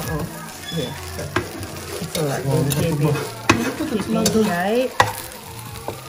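Okonomiyaki frying and sizzling on a hot pan while a spatula scrapes and knocks against the metal, the sharpest knocks about three and a half and five seconds in.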